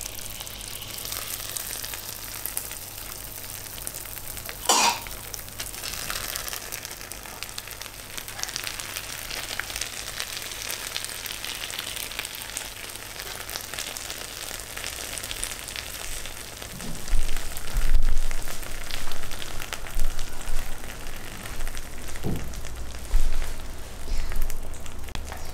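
Hot sugar syrup poured over freshly baked hot baklava, the pastry sizzling and crackling as it soaks up the syrup. A few dull low thumps come in the second half.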